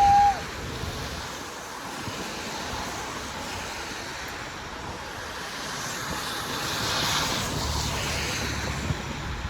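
A short car horn toot at the very start, then a steady rushing hiss of wind and passing traffic that swells about seven seconds in.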